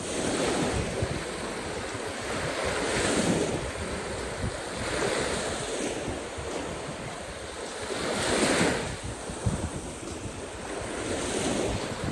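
Caspian Sea waves washing in, surging every two to three seconds, the strongest about eight seconds in, with wind buffeting the microphone.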